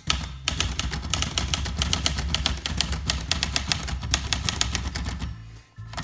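Olivetti Lettera 31 manual portable typewriter being typed on briskly: a fast, even run of keystrokes, roughly eight to ten a second, that stops shortly before the end.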